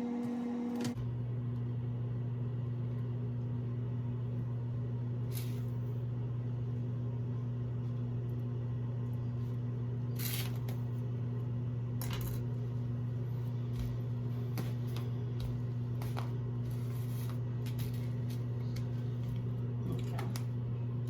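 A steady low hum, with a few faint clicks and taps scattered through it.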